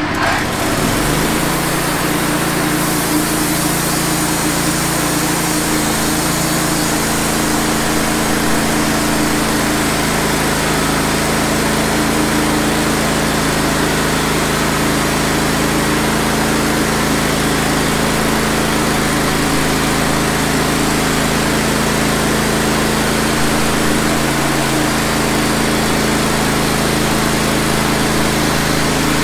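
Wood-Mizer LT15 band sawmill's gas engine running at cutting speed while the band blade saws through a log, the saw head pushed along by hand. The engine speeds up within the first second, then runs steadily under load.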